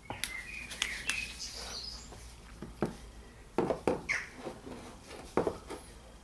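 Scattered light knocks and clicks of hands and tools handling parts in a car's engine bay, a few louder knocks in the second half, with short high chirps in the first second or so.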